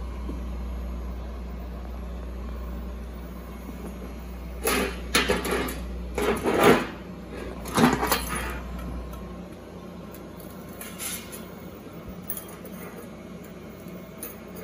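Handling noise: a run of knocks and clatters as metal laparoscopic instruments are picked up and set down on the cart, over a steady low hum that stops about two-thirds of the way through.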